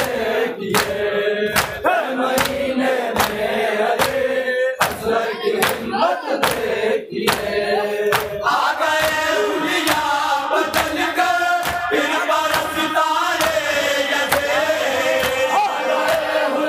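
A group of men chanting an Urdu salam lament in unison over rhythmic chest-beating (matam), about two hand strikes a second. The chorus grows fuller about eight seconds in.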